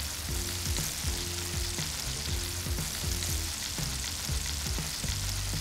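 Flour-dredged chicken pieces deep-frying in oil heated to about 350–375 °F, a steady bubbling sizzle.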